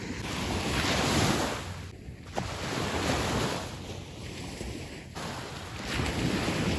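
Sea waves washing ashore in repeated swells every two to three seconds, with wind buffeting the microphone.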